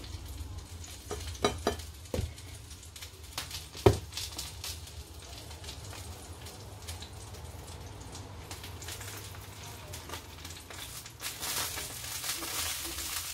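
Kitchen scissors snipping cooked sausage into pieces and a fork clicking against a ceramic plate: a scatter of sharp clicks, the loudest about four seconds in, and a few more snips near the end, over a faint steady hiss.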